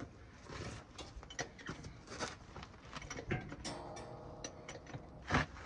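Scattered clicks and metal clunks as a heavy tire on its steel rim is rocked and pushed onto a wheel hub's studs, with one louder knock about five seconds in.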